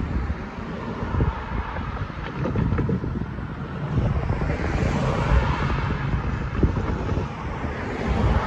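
Road traffic driving through the crossing, with tyre and engine noise swelling as a car passes about halfway through. Wind buffets the microphone throughout.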